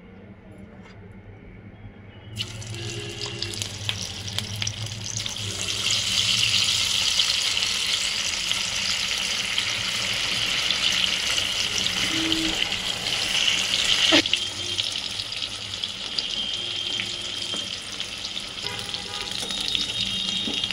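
Spice-coated boiled potato pieces sizzling as they go into hot oil for deep frying. The sizzle starts suddenly a couple of seconds in and grows louder, with a single sharp tap about two-thirds of the way through.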